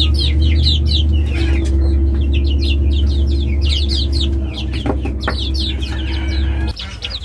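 Half-grown chicks peeping continuously, many short downward-sliding peeps overlapping, over a steady low hum that cuts off suddenly near the end.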